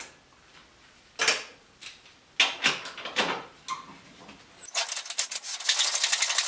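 A few separate metal clanks from tools, then, from about two-thirds of the way in, a socket ratchet clicking rapidly and steadily as a bolt is run out.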